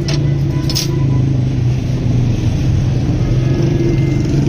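An engine running steadily with an even, unbroken hum. Two sharp clicks come in the first second.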